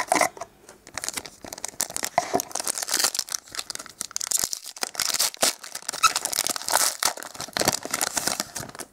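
Silvery plastic-foil wrapper of a trading-card booster pack being torn open and crinkled by hand: an irregular run of sharp crackles and rips.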